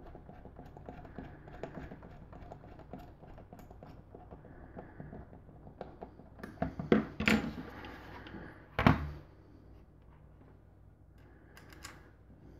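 Rapid small clicks and clatters of hands working screws, washers, nuts and a screwdriver to fasten feet onto a 3D-printed outlet box, sped up in time lapse. A cluster of louder clattering knocks comes about seven seconds in, and one more loud knock about two seconds later.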